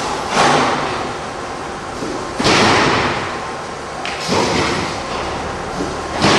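Double-head horizontal band resaw line running as a timber beam moves along its roller conveyor, with a sudden clunk and a fading rush of noise about every two seconds, four times.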